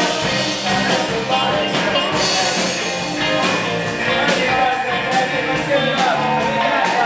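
Live rock band playing through a PA: drum kit keeping a steady beat under electric guitars and bass, with vocals that come forward near the end.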